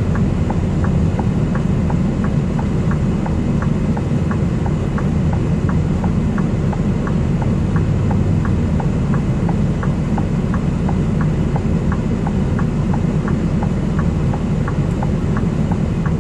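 Diesel truck engine running at low speed, heard from inside the cab as a steady low rumble, with a light, regular ticking about twice a second over it.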